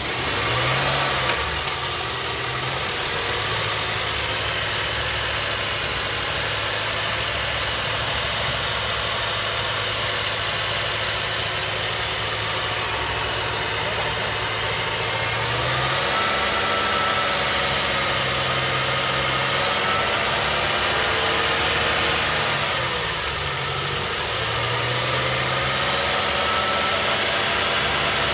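BMW E91's N43 four-cylinder petrol engine idling after a cold start. Its idle speed steps up about halfway through, then dips briefly and recovers near the end.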